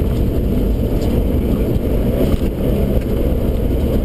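Rally car engine running hard at speed, with steady tyre and road noise, heard from inside the cabin.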